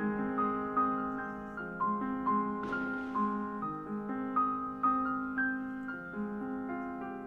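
Piano playing a melody of single notes over held lower chords, each note struck and then fading.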